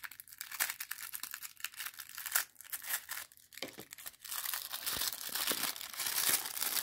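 Tissue paper crinkling and rustling as hands unwrap small doll shoes from it, with many quick crackles that grow denser and louder about four seconds in.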